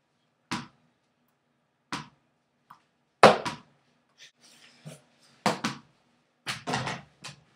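A series of sharp thumps and whacks from someone moving about with a Nerf foam sword. There are single hits about half a second and two seconds in, a loud quick pair about three seconds in, another pair a little later and a quick cluster near the end.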